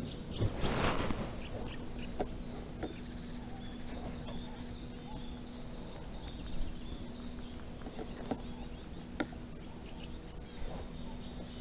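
Lakeside ambience: a short splash-like rush about a second in as the cast float rig lands, then small birds chirping, a steady low hum and a few faint clicks.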